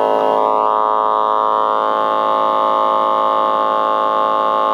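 A steady test tone of about 53 Hz from an HP 652A test oscillator, played through a RadioShack mini amplifier/speaker, heard as a buzzy hum much like mains hum. It comes in suddenly and loudly at the start and then holds steady.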